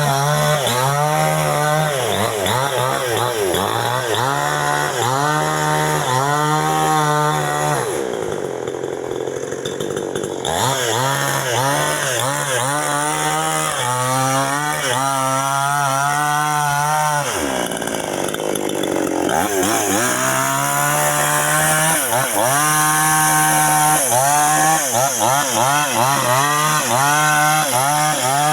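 Two-stroke chainsaw cutting through a coconut palm trunk. Its engine pitch rises and sags over and over, roughly once a second, as the chain bites and frees. It eases off to a lower, steadier note twice, about eight seconds in and again around seventeen seconds.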